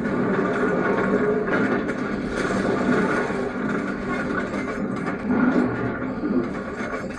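A train running, a steady low rumble.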